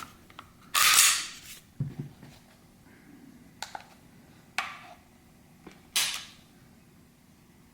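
Sig Sauer P320 pistol being dry-fired and reset during trigger pull-weight testing: sharp metallic clicks and two longer rasping strokes, about a second in and near the end, of the slide and trigger mechanism being worked.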